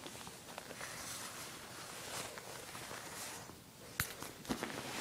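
Rustling handling noise of fur and fabric right against the microphone, with small scattered clicks and two sharp clicks near the end.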